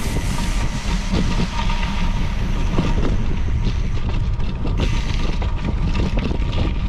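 Rolling noise of a ride picked up by a camera on the bike: a steady low rumble with wind, broken by many irregular rattles and knocks.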